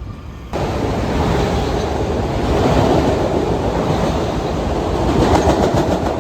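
Metro-North electric multiple-unit commuter train passing close by: a loud, steady rumble of wheels on rail that starts abruptly about half a second in, with clickety-clack over rail joints.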